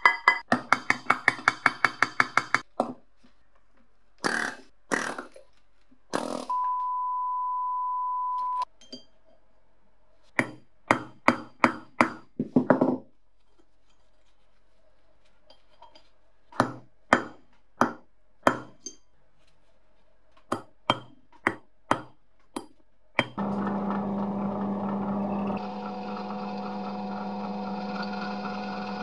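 A hammer strikes metal in runs of sharp taps, fast at first, then in slower groups. About 23 seconds in, a drill press starts and runs steadily, drilling into a small iron part. For about two seconds in between, a steady high tone sounds on its own.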